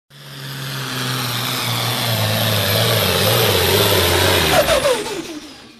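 Naturally aspirated super stock pulling tractor's engine running loud and steady, fading in at the start. About four and a half seconds in its pitch falls away as it comes off the throttle, and the sound fades out.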